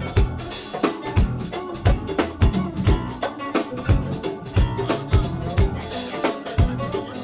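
Go-go funk band playing: a driving drum-kit groove with regular kick-drum hits and snare strokes under a full band.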